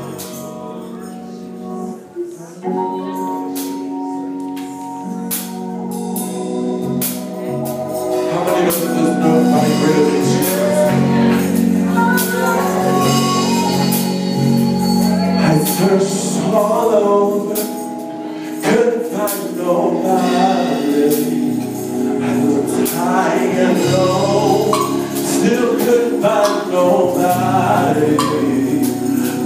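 Live gospel worship music: steady held chords with tambourine hits, and a man's singing voice comes in over them about eight seconds in and carries on to the end.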